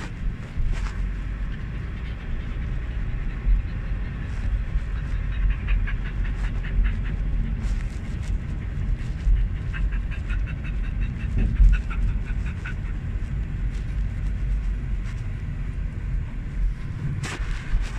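Steady low rumble of a moving car heard inside the cabin, with a dog panting quickly, about five breaths a second, in two spells: one a third of the way in and a longer one around the middle.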